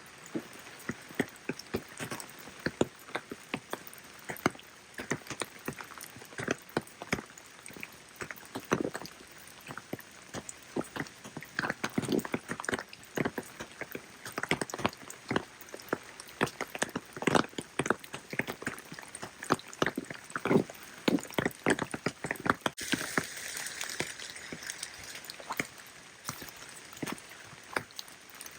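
Large raindrops dripping and splashing irregularly, many sharp drops a second over a light hiss of rain, with a brief louder hiss swelling near the end.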